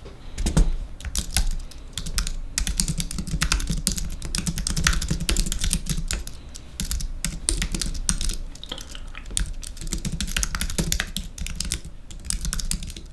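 Typing on an Apple Magic Keyboard with its low-travel scissor-switch keys: a fast, uneven stream of light key clicks.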